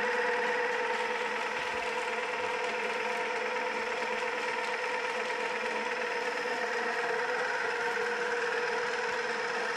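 Home-built pulse motor rig running: its pulse motors and bicycle-wheel rotor spinning with a steady pitched hum.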